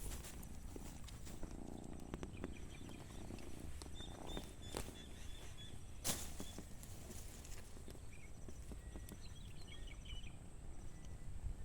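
Outdoor ambience: a steady low rumble with scattered light clicks and rustles, and one sharper knock about halfway through. Faint high bird chirps come about four seconds in and again near the end.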